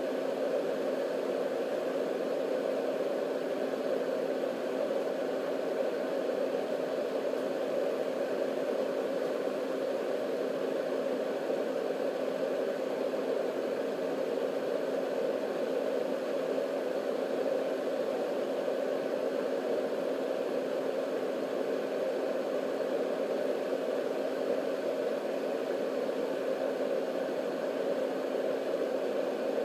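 Marpac Sound Screen 980A sound conditioner running: its two-speed motor spins a fan inside the shell, giving a steady rush of air with a faint steady hum beneath it.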